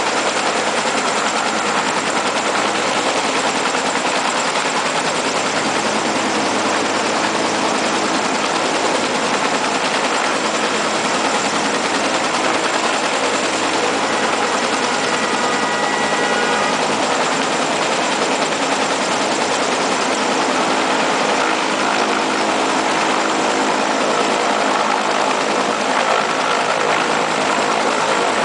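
Bell 214B helicopter hovering close overhead, its turbine engine and two-blade main rotor running loud and steady.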